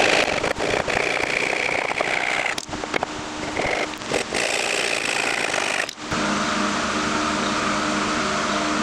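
Hand saw cutting through a wooden dowel in quick rasping strokes, with short pauses. About six seconds in the sawing stops and a steady hum takes over.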